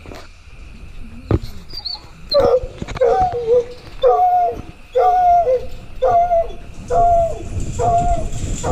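Mountain cur tree-barking: a steady run of barks, about one a second, starting a couple of seconds in and growing louder toward the end, the sign that the dog has a raccoon treed.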